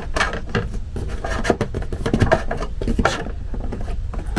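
Plastic air-conditioner filter being slid into the slot of its cover: a run of scraping, rubbing strokes and light clicks of plastic on plastic, over a steady low hum.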